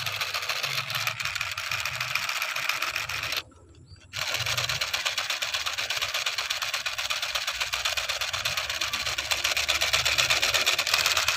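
Battery-powered black toy pistol firing continuously: a fast, even mechanical rattle. It stops for about half a second some three and a half seconds in, then resumes.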